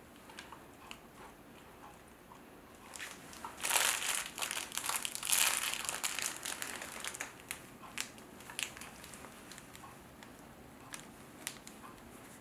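Crinkling and crackling as a plush lemonade-cup dog toy is squeezed and handled, in a dense run from about four to seven seconds in, then a few scattered clicks.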